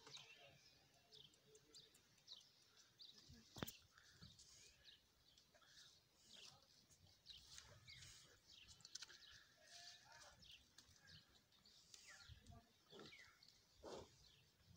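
Near silence with faint small-bird chirping scattered throughout, and one sharp click about three and a half seconds in.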